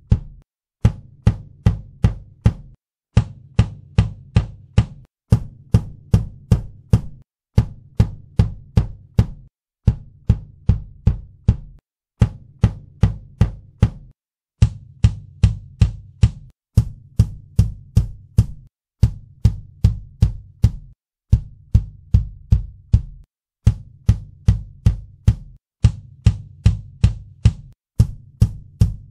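Kick drum hits recorded through different microphones, including the Vamisound V47F U47fet clone, and played back one clip after another. Each clip holds about five deep, punchy strikes with a sharp beater click, separated by short gaps. The clips are unequalised at first and equalised near the end.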